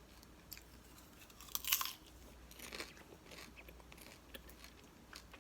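Someone chewing popcorn: a few faint crunching bites, the clearest just under two seconds in.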